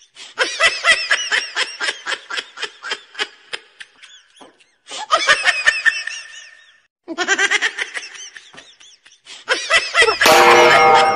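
Laughter, likely a dubbed laugh-track effect: runs of rapid, pulsing laughs, about six a second, broken by two short pauses. About ten seconds in, a loud noisy burst cuts in.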